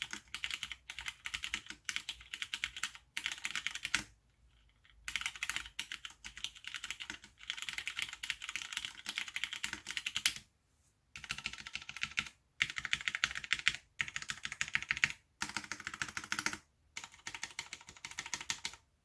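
AR87 mechanical keyboard with Cherry MX Brown switches being typed on quickly: dense runs of rapid keystrokes, broken by short pauses several times, the longest about four seconds in and about ten seconds in.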